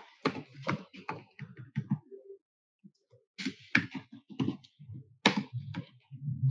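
Computer keyboard typing: quick runs of keystrokes, with a pause of about a second about two and a half seconds in.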